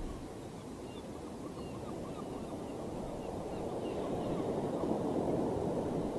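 Sea waves washing over a shore: a steady rush that slowly swells louder toward the end, with a few faint high chirps above it.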